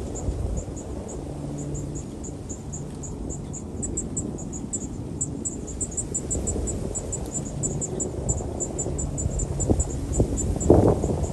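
Insect, typical of a cricket, chirping in a rapid even series of short high-pitched chirps, about three to four a second, over a low rumble on the microphone, with a few soft knocks near the end.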